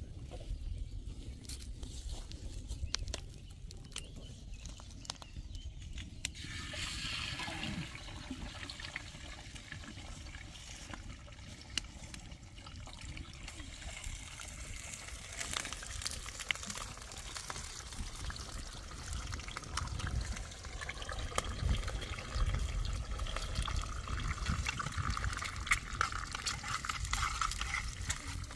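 Water trickling, setting in about six seconds in and carrying on, over a low rumble.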